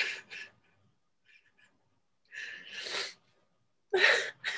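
A woman crying with emotion: breathy sobs and gasps, a short pair at the very start, a longer rising one about two and a half seconds in, and a sharper, voiced catch of breath near the end.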